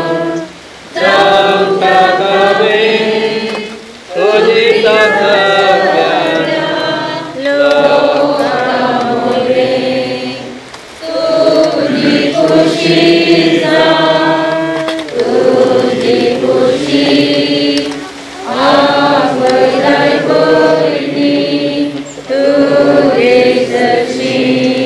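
A group of voices singing a slow funeral hymn together, in sustained phrases a few seconds long with short breaks for breath between them.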